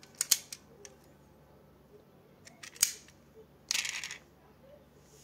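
Die-cast metal model car being handled: a couple of sharp clicks near the start, another click nearly three seconds in, and a short rattle about a second later.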